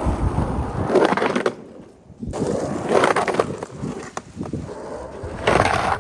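Skateboard wheels rolling over rough pavement, with knocks and clacks from the board. The sound breaks off about a second and a half in and starts again a moment later.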